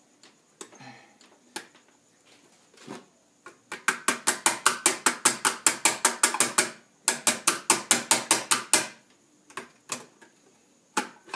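A ratcheting mechanism worked in two runs of rapid metallic clicking, about seven clicks a second, each run lasting a few seconds. A few scattered clinks of metal parts come before them.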